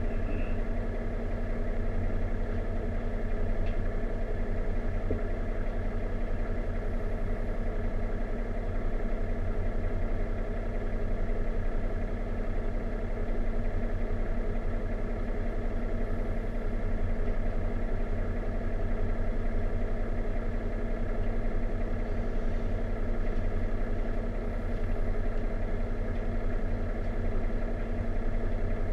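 Diesel railcar engine idling steadily while the train stands at a station, heard from inside the carriage as a constant low hum.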